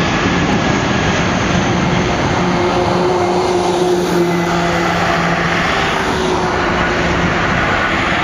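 Airbus A319-132's two IAE V2500 turbofan engines at takeoff thrust during the takeoff roll: a loud, steady rush with a low hum and a faint high whine.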